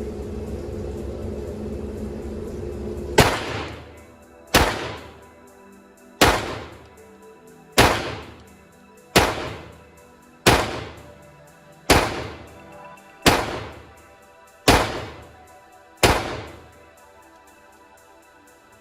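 Walther P22 .22 LR pistol firing ten shots in a steady string, about one every second and a half, each shot followed by a short echo.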